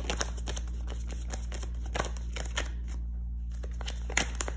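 A deck of tarot cards being shuffled by hand: a quick run of card clicks and slaps, pausing briefly about three seconds in before a few more.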